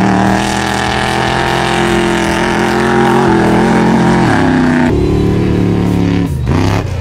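Off-road race truck engine running hard at high revs, with a steady pitch that drops away and climbs back up near the end.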